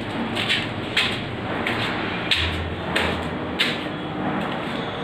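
Footsteps scuffing on a dusty bare concrete floor, about three steps every two seconds. A low hum sounds for about a second midway.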